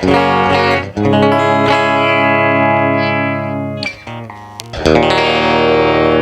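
Electric guitar, a Les Paul-style copy with its stock pickups, played through a Line 6 POD GX amp modeler with effects. A chord is struck and left to ring for a few seconds, a few short notes follow in a brief lull, and then another chord is struck and rings out.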